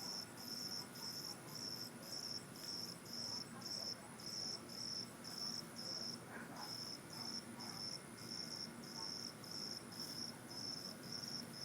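Field crickets chirping at night in an even rhythm, about two high chirps a second, with a steady high-pitched insect tone running behind them.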